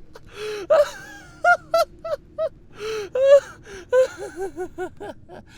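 A man's voice laughing hard: breathy gasps and runs of short 'ha-ha' giggles, quickening into a rapid string near the end.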